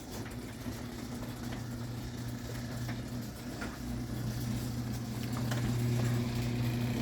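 Garage door opener motor running steadily as the door travels down, a low hum that grows slightly louder, with a few faint clicks. It closes with no glitch: the cut-out corner of the door panel no longer catches on the frame.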